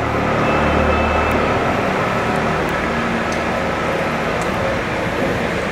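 Steady traffic noise with a low engine hum that swells about half a second in.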